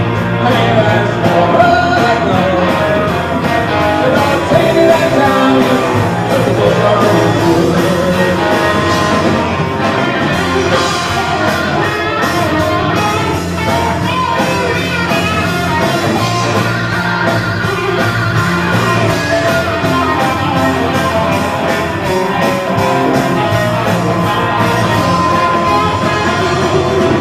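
Live rock band playing loudly, electric guitars over drums, with a singer.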